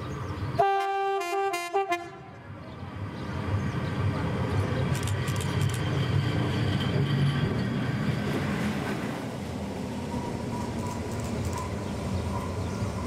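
Electric locomotive 462 009 of Cargo Trans Vagon sounding its multi-tone horn in a few short blasts about half a second in. It then draws near and runs past with a swelling rumble of wheels on rail, which eases to a steadier, lower rumble after about nine seconds.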